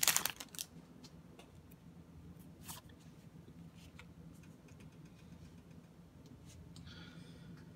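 Faint handling of Yu-Gi-Oh trading cards: the foil booster wrapper crinkles briefly at the start, then a few soft clicks and taps as cards are laid on a playmat, with a light sliding rustle near the end.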